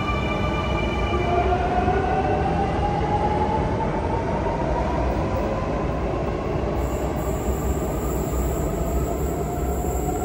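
Sydney Trains Waratah double-deck electric train pulling out of an underground platform. Its traction motor whine rises in pitch as it gathers speed, over a steady rumble of wheels on rail.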